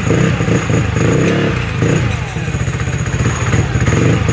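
Supercharged Yamaha Force 155 scooter's single-cylinder engine idling steadily, with a thin steady high whine above the exhaust note.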